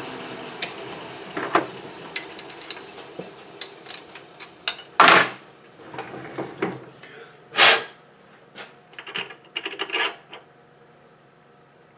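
A metal lathe spinning down, its hum falling in pitch and fading in the first moments. This is followed by a series of sharp metallic clinks and knocks as a steel part is handled and test-fitted onto the freshly turned taper in the chuck, two of them clearly louder than the rest.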